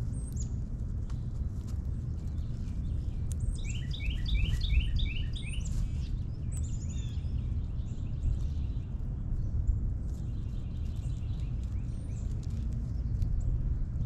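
Backyard songbirds calling: a quick run of about eight short chirps in the middle, with scattered single chirps before and after, over a steady low rumble.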